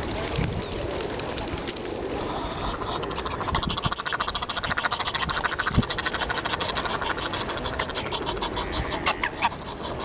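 Waterfowl calling: a rapid, even run of harsh notes from about two and a half seconds in until near the end.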